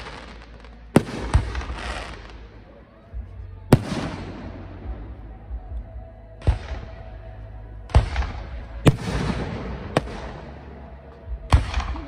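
Aerial firework shells bursting overhead: about eight sharp bangs at irregular intervals, each followed by a fading hiss.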